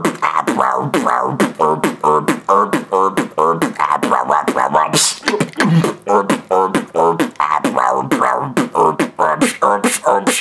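Solo human beatboxing in a heavy-bass style: a fast, steady run of sharp vocal kick and snare clicks interleaved with pitched bass tones from the throat that bend and fall in pitch, with a brief hissing cymbal-like sound about halfway through.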